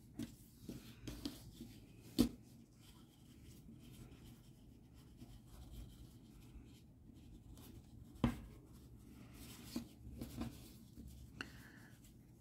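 Soft rustling and rubbing of hands pushing fibre stuffing into a crocheted toy's body and handling the yarn, with two brief sharper knocks, about two seconds in and about eight seconds in.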